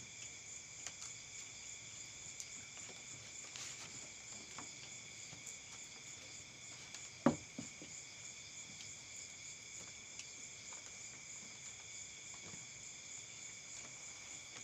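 Steady chorus of night insects, several high, even tones running together without a break. A single sharp knock about halfway through is the loudest sound.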